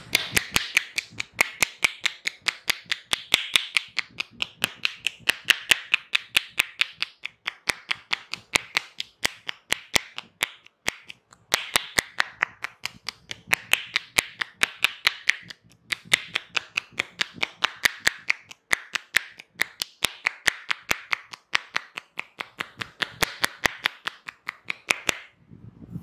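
Hair cracking on a head massage: fingers snap and pull sections of oiled hair against the scalp, giving a rapid run of sharp cracking clicks, about three a second, over a rustle of hair rubbing. The clicks pause briefly twice.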